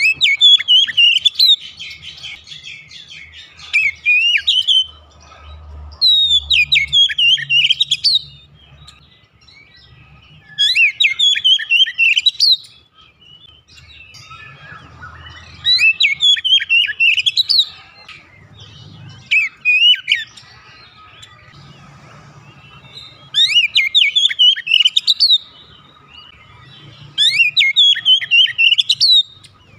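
Male oriental magpie-robin singing: about eight loud phrases of rapid, varied whistles and sweeping notes, each about two seconds long, with short pauses between them.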